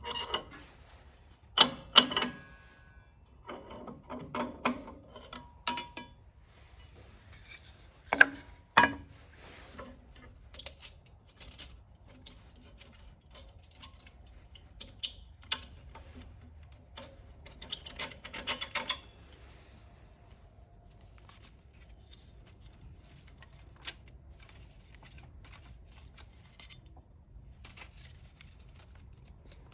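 Carbide-tipped circular saw blades and small metal parts being handled and fitted together by hand: intermittent metallic clinks, taps and light scraping. The loudest knocks fall in the first ten seconds, with a cluster again a little past halfway, and only occasional faint ticks after that.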